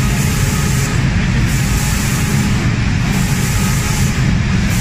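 Automatic spray-painting machine running: a steady hiss of spraying with a low machine hum underneath.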